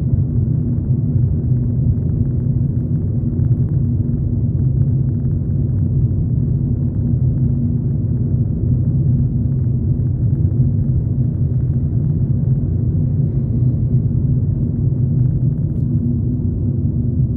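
Steady low rumble of a car driving, heard from inside the cabin: engine and road noise with a constant low drone.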